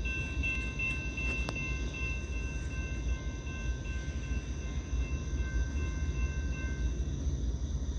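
Norfolk Southern freight train approaching, giving a steady low rumble.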